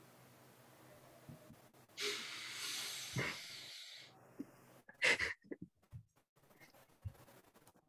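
Faint microphone sounds over a video call: a hiss of breath lasting about two seconds, starting about two seconds in, then a few short, faint noises.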